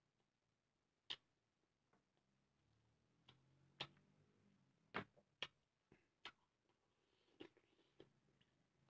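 Eating sounds at close range: about a dozen sharp, irregular mouth clicks and smacks from chewing rice, over near silence.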